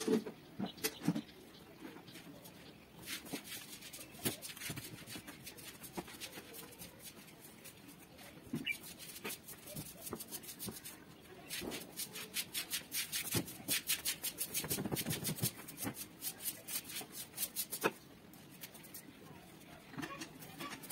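Bedding rustling and flapping as a blanket is shaken out and a bedsheet is spread and smoothed over a bed. The rustling comes in bursts of rapid crackles and is busiest in the second half.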